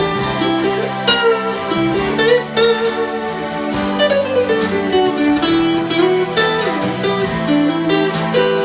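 Instrumental break in a Mandarin pop ballad: a gliding lead melody over guitar accompaniment with a steady beat.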